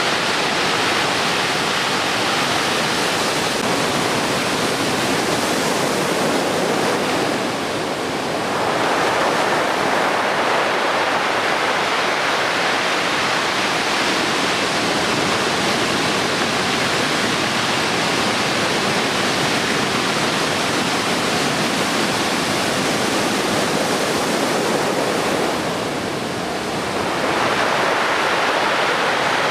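Heavy typhoon swell breaking on the beach: a continuous roar of whitewater that eases briefly twice and swells again as the next waves break.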